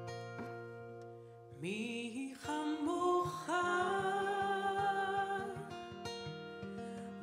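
Acoustic guitar strummed and picked, then a woman's voice comes in about a second and a half in, singing long held notes over the guitar.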